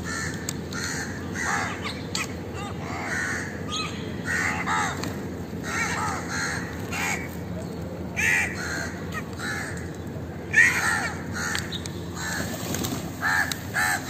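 A flock of crows cawing, many harsh calls overlapping and following one another, with one louder call about two-thirds of the way through.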